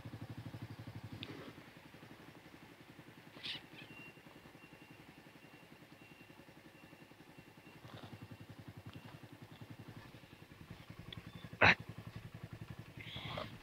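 Suzuki motorcycle engine idling steadily. A single sharp click sounds about twelve seconds in, and a faint steady high tone is heard for several seconds in the middle.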